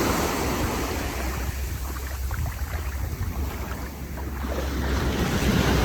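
Small sea waves washing onto a beach, swelling and easing, with wind rumbling on the phone's microphone.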